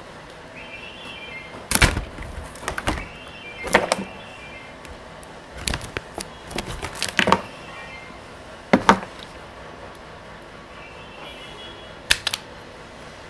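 Clicks and knocks of hand tools and wire bundles being handled and set down on a workbench, about seven sharp ones spread out, with a quick double click near the end as a wire stripper is taken up.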